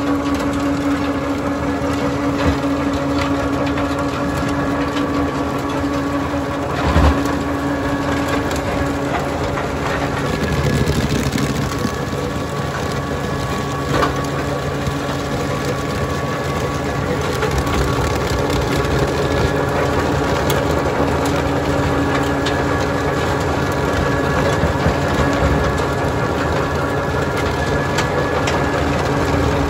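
HEN RBM-S tractor-mounted rotary stone crusher at work in stony soil: a steady mechanical grinding with a whine from the drive as the rotor breaks up stones and earth. A few sharp knocks stand out, the loudest about seven seconds in and another about fourteen seconds in.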